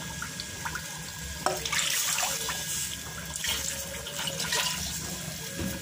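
Wet ground poppy-seed paste being pushed out of a ceramic bowl by hand into a pot of hot fried masala: wet, watery squelching and sloshing with a few louder swishes, over the frying masala.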